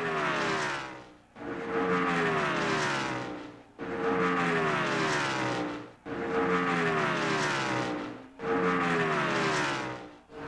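Race cars passing one after another, about every two seconds. Each engine note comes in abruptly and drops in pitch as the car goes by, then fades.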